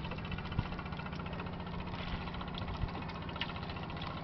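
An engine running steadily with a fast, even chugging. Two soft knocks come through, one about half a second in and one near three seconds.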